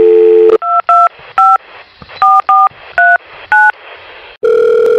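Telephone dial tone that stops about half a second in, then seven touch-tone keypad beeps as a number is dialled, in uneven groups. A steady line tone starts again near the end.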